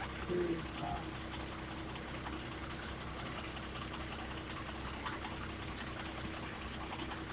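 Steady rushing of water gushing from an outlet into the canal, under a continuous low mechanical hum with a thin steady tone, like an engine idling. A couple of brief faint sounds come under a second in.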